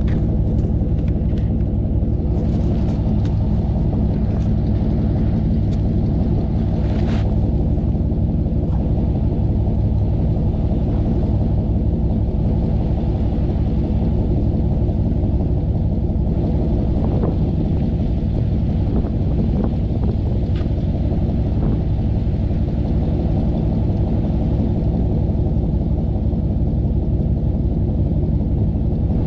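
A vehicle driving along, with a steady low engine and road rumble that holds constant throughout.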